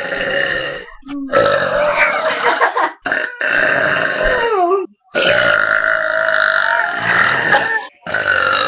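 A young woman belching loudly: a run of about five long, drawn-out burps back to back, each a second or more long with short breaks between them; one slides down in pitch as it ends, around the middle.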